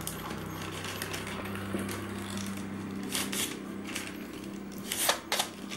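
Glossy paper rustling as it is folded and creased by hand, with a few short, crisp swishes about three seconds in and again near the end, over a steady low hum.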